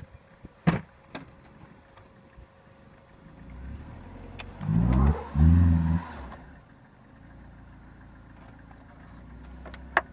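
A couple of sharp knocks, then a 2000 Dodge Neon's four-cylinder engine revved in two loud rising surges about halfway through, as the car tries to pull itself up off a three-wheeled perch. It then settles back to a low, steady idle.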